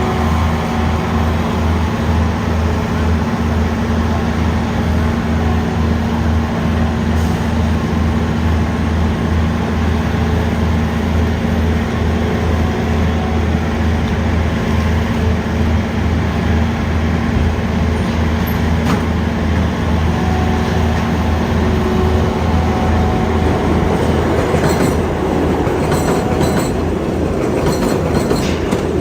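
Skid steer loader's diesel engine running steadily under load, with a low hum; about 24 seconds in the steady hum gives way to a rougher rattling and clanking.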